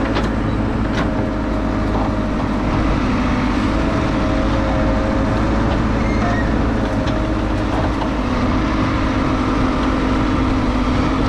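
JCB backhoe loader's diesel engine running steadily while its backhoe arm digs. A higher tone comes and goes over the drone.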